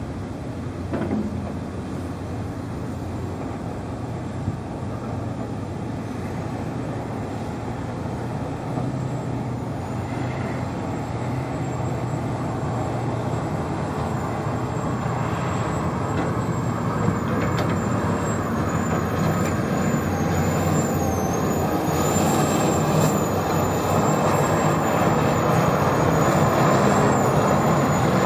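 Diesel engines and hydraulics of large hydraulic excavators (a Komatsu PC1250 and a Caterpillar 385) working in a pit, with articulated dump trucks, as a steady heavy rumble that grows gradually louder. A thin, high, wavering whine comes in about a third of the way through.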